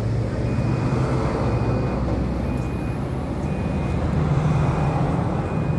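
A motor running steadily with a low hum that rises slightly about four seconds in, under a short high beep repeating about once a second, like a vehicle's reversing alarm.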